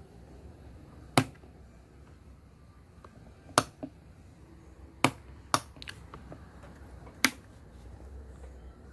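A series of sharp, short clicks or knocks at uneven intervals: five loud ones with a few fainter ones between.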